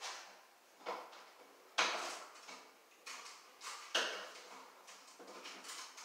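Plastic smoke detector being twisted onto its ceiling mounting plate: a handful of sharp plastic clacks and scrapes, each trailing off quickly, the loudest about two seconds in.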